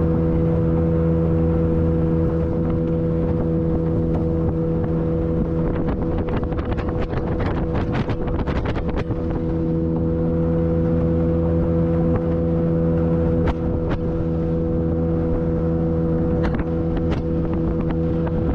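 Outboard engine of a polyethylene jetboat running at a steady speed while the boat travels over the water. About six to nine seconds in comes a run of knocks and splashes as water slaps the hull, with a few more later.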